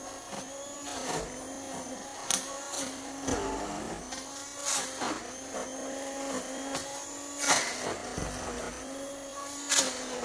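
Small electric mixer motor running at a steady speed, with scattered clicks and knocks through it.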